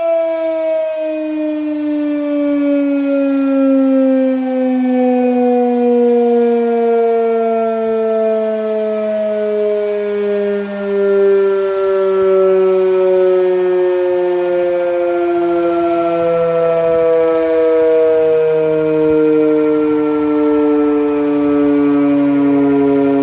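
ED Bullard Model 5-VNC "Weltex" fire siren sounding a short alert, two pitches at once gliding slowly and steadily downward as the rotor winds down. It is loud throughout.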